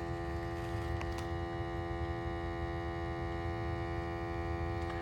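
A steady hum with many overtones that holds one unchanging pitch throughout.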